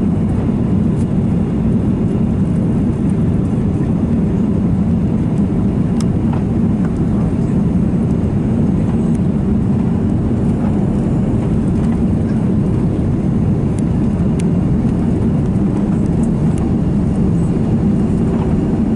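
Steady, loud cabin noise of an Airbus A330 on final approach, heard from a window seat: the low rumble of the engines and the rush of air over the airframe. A few faint clicks sound over it.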